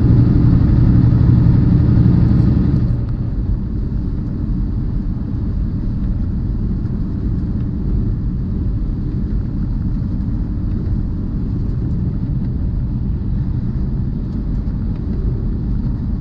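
Steady low rumble of a semi truck's engine and tyres on the highway, heard from inside the cab. It is louder for about the first three seconds, then settles lower.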